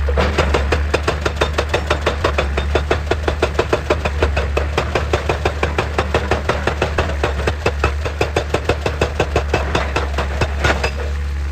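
Excavator-mounted hydraulic rock breaker hammering rock, rapid even blows about six or seven a second, over the excavator's steady engine drone. The hammering stops shortly before the end.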